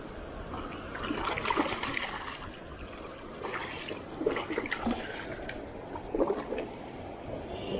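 A hooked fish splashing at the surface as it is brought to a landing net, in irregular bursts of splashing and rattling, over a steady rush of tailwater from the dam's release.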